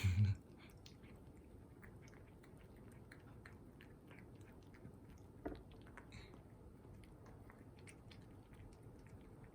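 A cat chewing a treat: many small, quick crunching clicks, fairly faint. A loud dull thump comes right at the start, and a smaller knock about five and a half seconds in.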